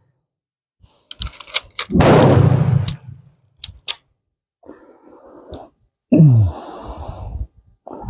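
A single shot from a .45 1911 pistol about two seconds in, a sharp bang that rings away over about a second, preceded by a few quick metallic clicks of the gun being handled. More clicks follow, and a duller thump comes about six seconds in.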